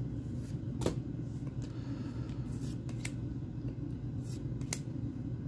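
Pokémon trading cards being flipped through by hand, card sliding over card, with a few short sharp snaps as cards are moved to the back of the stack: one about a second in, two more just after four seconds. A steady low hum runs underneath.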